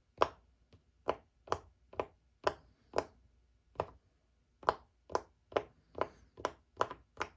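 Silicone push-pop bubble fidget toy being pressed bubble by bubble: a string of short, dull pops about two a second, with a brief pause partway through. It is a weak pop, called "so disappointing."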